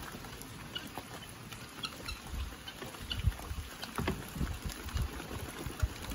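Outdoor background of wind gusting on the microphone, with scattered faint ticks and taps.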